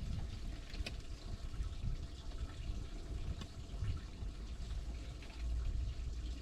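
Water splashing and dripping from a landing net holding a large flathead catfish, over a steady low rumble.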